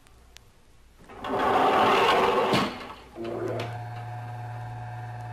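Elevator sound effects from a 1963 Audio Fidelity stereo demonstration record: a rushing slide of about a second and a half that stops abruptly, as the elevator door shuts. From about three seconds in comes the steady hum of the elevator car running between floors.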